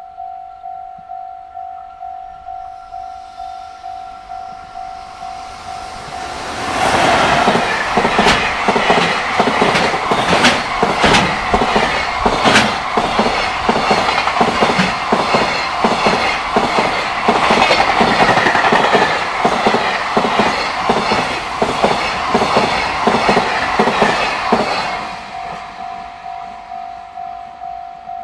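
A Japanese level-crossing alarm dings about twice a second. About six seconds in, a JR Freight EF210 electric locomotive and a long train of container wagons pass close by, and their wheels clatter loudly over the rail joints for about eighteen seconds, drowning out the alarm. The alarm is heard again near the end.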